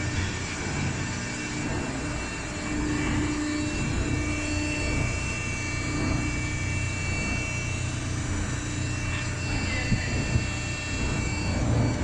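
Hydraulic bagging baler's electric motor and pump running with a steady drone and a faint steady whine, with two brief knocks about ten seconds in.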